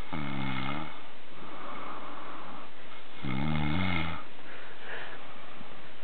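Snoring: two snores about three seconds apart, each lasting just under a second, the pitch wavering in the second one.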